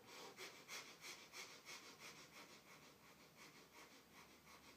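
Breath of fire: rapid, rhythmic breathing in and out through the nose, about three sharp breaths a second, faint and even.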